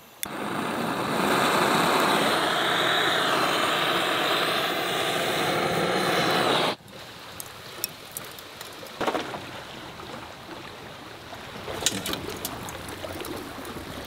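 Handheld gas blowtorch hissing steadily for about six seconds as it lights charcoal in a pizza oven's fuel tray, then cutting off suddenly. After it, quieter crackling with a few sharp snaps from the lit charcoal.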